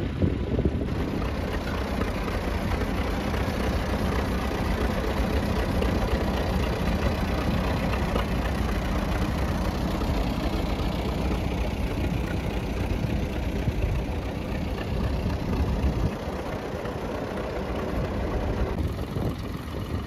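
Vintage tractor engine running steadily, its low note easing off about sixteen seconds in.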